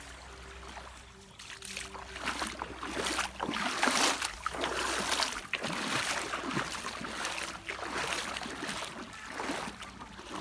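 Shallow seawater lapping and splashing close by, in irregular rushes of noise that begin about a second and a half in. A faint steady low hum is heard in the first couple of seconds.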